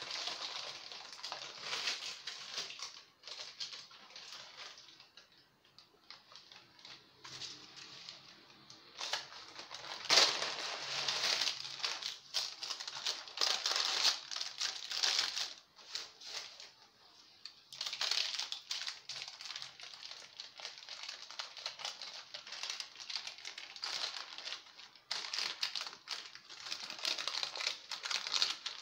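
Baking parchment crinkling and rustling under the hands as a freshly baked sponge sheet (génoise) is turned out onto a fresh sheet and rolled up in the paper. It comes in irregular bursts with short pauses and is loudest about ten seconds in.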